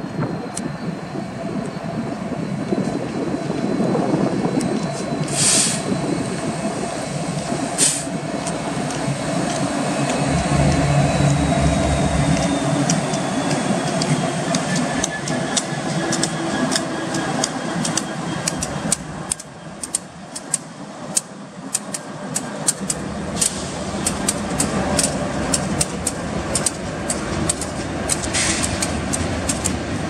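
Manifest freight train led by four diesel locomotives (two EMD SD70s, a GE ET44AC and a GE CW40-8) approaching and passing close by. The engines are loudest about ten seconds in. From about twenty seconds on, steady clicking of freight-car wheels over rail joints follows as the cars roll past.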